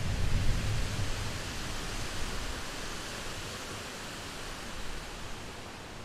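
Wind blowing through bushes as a steady hiss, with low gusts buffeting the microphone for about the first second.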